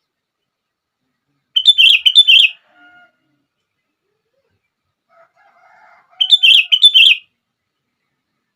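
Sooty-headed bulbul (kutilang) singing: two short bursts of several quick, loud notes, each about a second long, one just under two seconds in and one about six seconds in, with faint softer calls between them.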